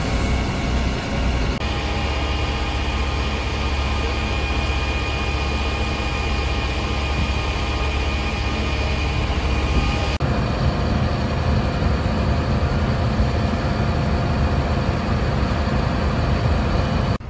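Fire engines' diesel engines running steadily close by, a heavy low rumble with a faint steady whine over it. The sound shifts abruptly about one and a half and ten seconds in as the shots change.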